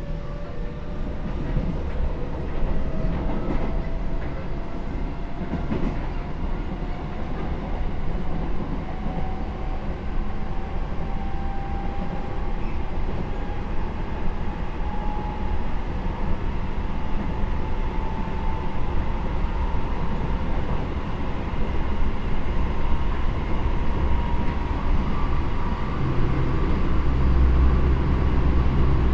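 Seibu 9000 series electric train heard from inside the car: its Hitachi IGBT inverter and traction motors whine in several tones that rise steadily in pitch as the train picks up speed, over the rumble of wheels on rail.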